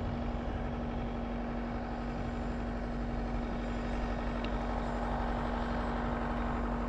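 A steady motor hum: one constant tone over an even rushing noise, unchanging throughout.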